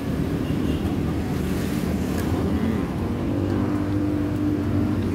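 Steady rumble of road traffic, with a vehicle engine's hum growing louder from about halfway through.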